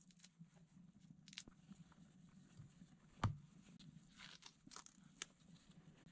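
Faint knife-on-sausage cutting: soft slicing and scraping with scattered small clicks, and one sharp knock about three seconds in as the knife meets a wooden block.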